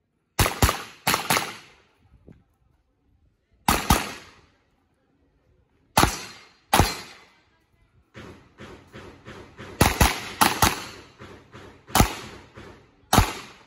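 Revolver shots fired in a practical shooting stage, about fourteen in all, mostly in quick pairs with short pauses between groups, each shot trailing off in echo. A run of quicker, quieter pops comes between the pairs about eight to ten seconds in.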